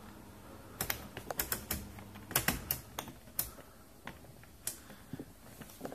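Rotary function-selector knob on a stainless-steel oven being turned, clicking through its positions in a quick, irregular run of sharp clicks that thins out toward the end.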